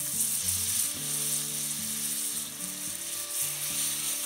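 Melted butter sizzling steadily in a hot cast iron Dutch oven as sugar-coated pear halves are laid in cut side down to sear.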